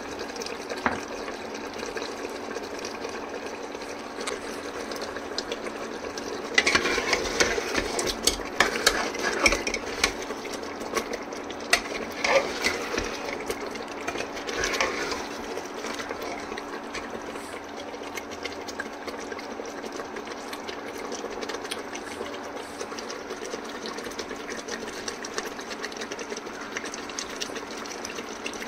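A spoon stirring and scraping in a cooking pot, clinking for several seconds about a quarter of the way in, over a steady machine-like hum.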